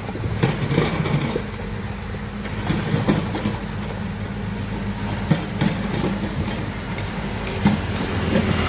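Heavy excavator engine running steadily, with scattered knocks and clanks from the machine at work.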